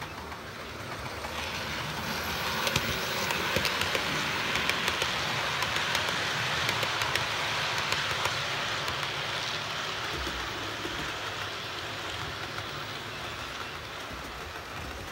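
An OO gauge model train, a long rake of coaches behind a locomotive, running past on curved track: a steady rolling rattle with light clicking of the wheels over the rail joints. It swells as the train comes close, holds through the middle, and slowly fades as it moves away.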